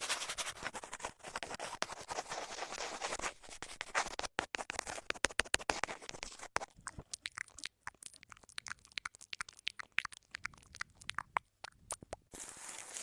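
Close-miked ASMR trigger sounds: a dense scratching rustle for about the first three seconds, then a run of quick, irregular taps and clicks, with the rustle coming back near the end.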